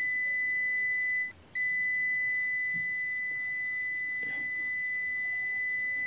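Digital meter's continuity beeper giving a steady, high-pitched beep while the test probes are held across a microwave oven high-voltage transformer winding. It cuts out for a moment just over a second in, then sounds steadily again. The beep marks near-zero resistance, which is read as a shorted transformer.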